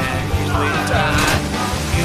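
Rock music with a steady drum beat and pitch-bending guitar or vocal lines.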